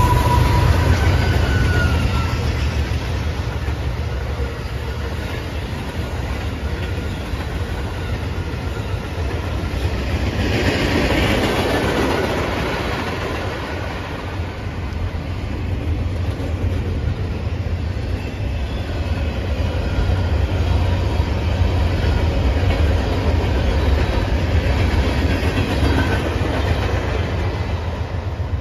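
CSX freight train rolling past at speed close by, a steady heavy rumble with the wheels clicking over the rail joints, swelling louder about ten to twelve seconds in. A train horn note fades out in the first second or two.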